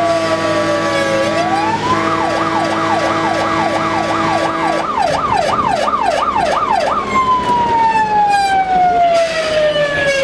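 Fire engine's siren heard from inside the cab: a slow wail falling and rising, switching about two seconds in to a fast yelp of about two sweeps a second, then back to a slow falling wail near the end.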